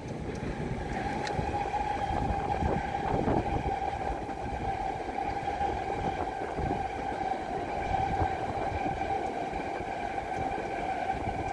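NS Sprinter Lighttrain (SLT) electric multiple unit passing at speed: the rumble of its wheels on the rails with a steady high whine over it, getting louder just after the start.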